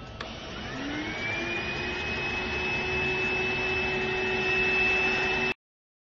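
Airbot Supersonics 3.0 cordless stick vacuum: a click, then the motor spins up with a rising whine that levels off into a steady high-pitched running sound with airflow rush. The sound cuts off suddenly near the end.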